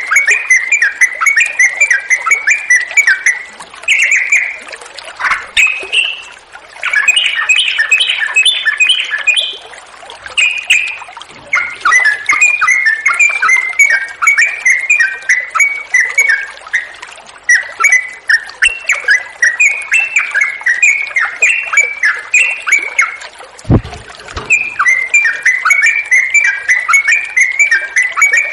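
Yellow-vented bulbul (trucukan) singing long, fast runs of bubbly chirping notes, almost without pause, over a background of flowing water. A brief dull thump is heard once, a few seconds before the end.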